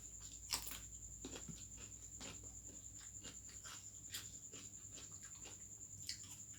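Faint mukbang eating sounds: a person chewing pigeon and chicken heads, with a few sharp crunches and mouth clicks scattered through.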